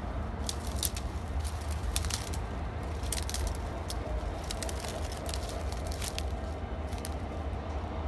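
Irregular crunching and crackling of footsteps in snow over a low steady rumble from the approaching diesel locomotive. The crunching thins out near the end.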